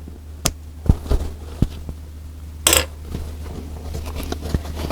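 Handling of leather at a sewing machine: scattered light knocks and clicks, with one short rustling scrape near the middle, over a steady low hum.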